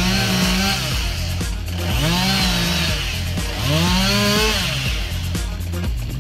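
Two-stroke chainsaw cutting wood, revved up and down three times, its pitch rising and then falling away with each burst.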